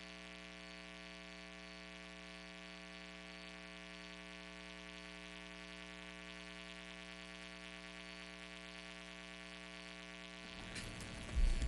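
Steady electrical mains hum and buzz on the meeting room's recording system. Near the end the hum breaks off and a few knocks and a thump follow.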